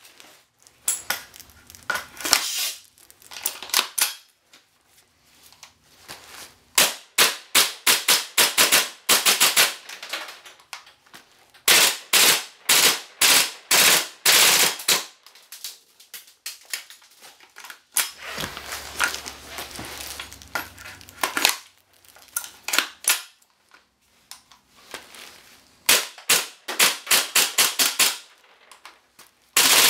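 G&G CM16 Raider gas blowback airsoft rifle firing, in single shots and fast strings of several shots a second, each a sharp crack, in several groups.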